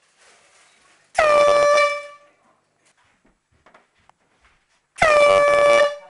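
Handheld compressed-gas air horn blown twice, about four seconds apart. Each blast is a loud, steady honk of just under a second.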